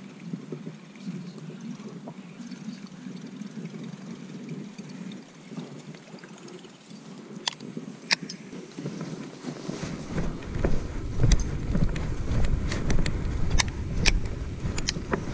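Fishing handling noise from a baitcasting rod and reel: two sharp clicks as a lure is cast about eight seconds in. From about ten seconds a loud low rumble with crackles as the angler pushes through grass and bushes, with vegetation and clothing rubbing close to the microphone.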